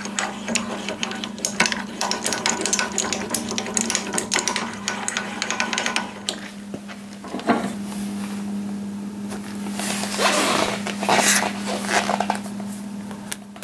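Hand controls of a TS-210 mini lathe being worked by hand: quick metal clicks and rattles for the first several seconds, then a few longer scraping, rubbing passes near the end as a handwheel is turned. A steady low hum runs underneath.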